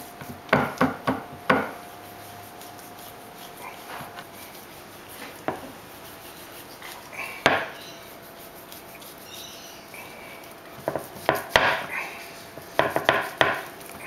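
Chef's knife scoring pork belly skin on a wooden cutting board, its blade knocking sharply against the board. There is a quick run of about four knocks within the first second and a half, a single one midway, and two more quick runs near the end.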